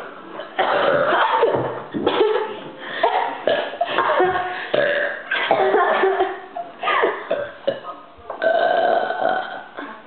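A run of loud human belches, one after another with short gaps, made on purpose in a belching contest.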